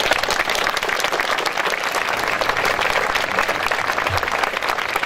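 Audience applauding after a speech, a steady dense clapping from many hands.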